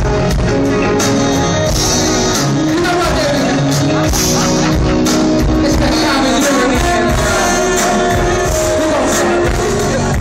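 Live R&B band of drums and keyboards playing on stage with a lead singer, heard loud from within the audience.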